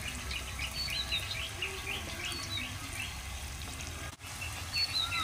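Small birds chirping rapidly, about three chirps a second with a few thin whistles, over a soft hiss of jalebi batter frying in hot oil in an iron kadai. The sound drops out for an instant about four seconds in.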